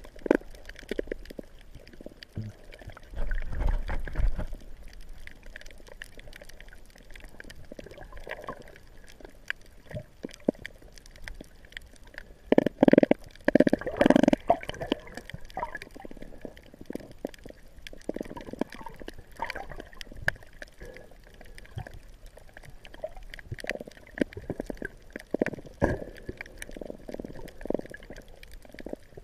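Seawater sloshing and gurgling close by in irregular splashes, with two louder rushes of water, one about three seconds in and a longer one around the middle.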